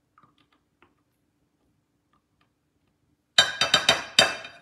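About five quick knocks against the rim of a glass mixing bowl near the end, each ringing briefly, as mayonnaise is knocked off a measuring cup and spatula; faint small scraping clicks before them.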